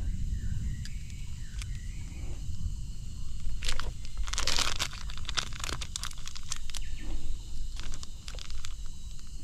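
Insects chirping steadily in the forest, under a low rumble, with scattered clicks and a louder rustling burst about four and a half seconds in.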